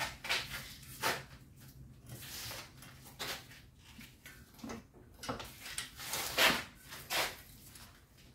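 Handling noises of a brake pad wear-sensor harness and its clip being worked into place on the back of a brake caliper: irregular clicks, scrapes and rustles, the loudest a little past the middle.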